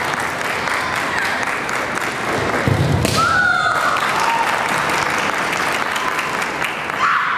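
Audience applause dying away, then kendo kiai: a sharp impact about three seconds in followed by a fencer's long, high held shout, and another long shout near the end.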